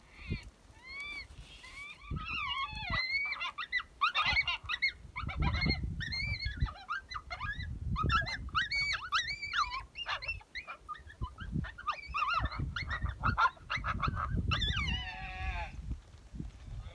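Chorus of coyote yips and howls: many high, wavering calls overlap, with a few single rising-and-falling calls first and one long falling howl near the end.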